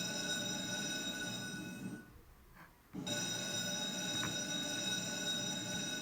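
A telephone ringing: a steady electronic ring of many pitches at once that breaks off about two seconds in and starts again a second later.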